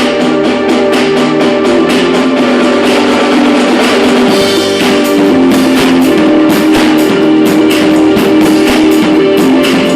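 Loud dance music with a drum kit keeping a steady, driving beat over held, guitar-like pitched notes.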